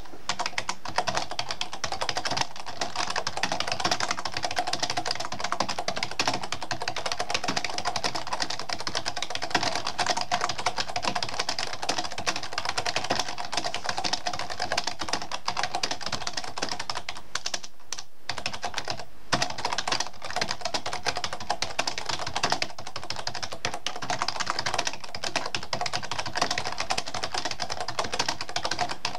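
Fast, continuous typing on a computer keyboard, the keys clicking in a quick, even patter with two short pauses a little past halfway.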